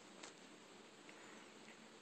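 Near silence over a steady hiss, with a few faint soft clicks of a cat licking its fur while grooming.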